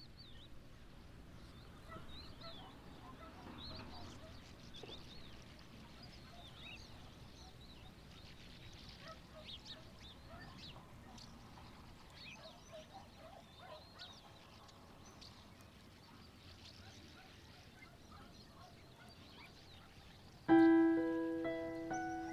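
Faint outdoor ambience with small birds chirping on and off. Near the end a piano note is struck loudly, followed by a couple more notes, and they ring out slowly.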